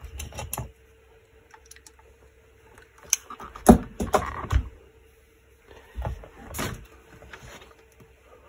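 Knocks and clatter from the Phonotrix 88 portable tape recorder's case being picked up and tipped to work loose a screw dropped inside it. The clatter comes in three bouts, the loudest about three to four seconds in, over a faint steady hum.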